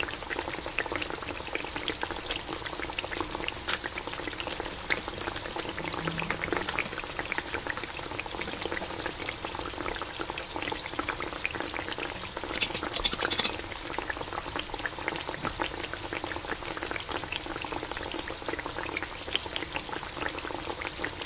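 Soup simmering in a pan, a steady bubbling hiss dotted with small crackling pops, with a brief louder burst of hiss about thirteen seconds in.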